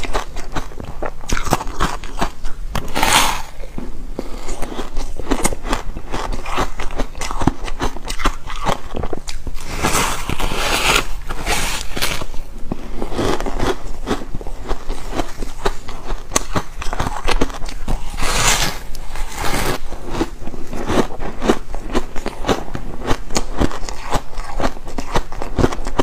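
Close-up biting and chewing of porous foam ice: a soft, crackly crunching that goes on throughout, with several louder bites along the way.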